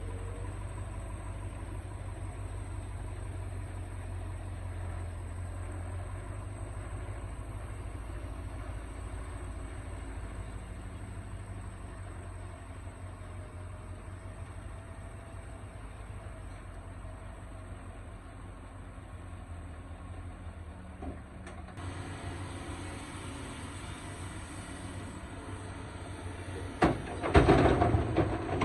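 Excavator diesel engine running steadily with a low rumble, then several loud metallic clanks near the end.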